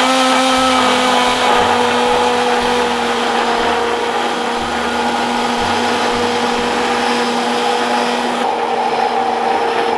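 Hand-held immersion blender running steadily in a tall glass jar, whipping egg, mustard, lemon juice and oil into a thick emulsified dressing. Its motor hum sinks slightly in pitch as it runs.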